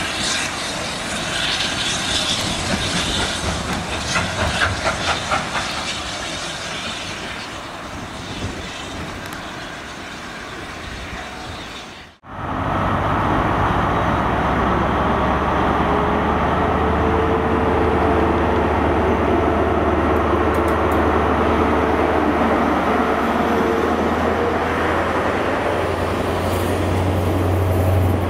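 A steam locomotive working slowly, with a few louder beats about four to five seconds in, fading away. Then a Class 43 HST diesel power car's steady low drone, with a wavering whine above it, as the train's coaches roll past, getting louder near the end.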